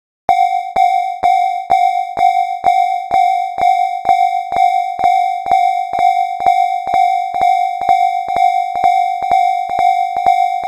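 Japanese railroad crossing warning bell ringing its steady 'kan-kan', a clear struck tone repeating about twice a second. It starts from silence just after the beginning.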